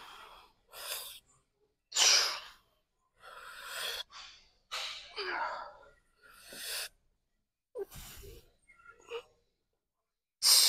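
A man's sharp, forceful breaths and grunts, one about every second, as he works through a set of machine hamstring curls under strain; the loudest come about two seconds in and near the end.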